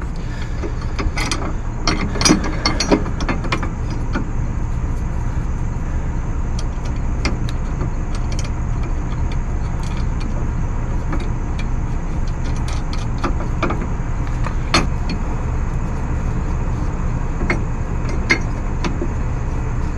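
Hand ratchet wrench clicking in short, uneven runs with metal clinks as the bolts of a front suspension bracket are tightened in a tight space, over a steady low rumble.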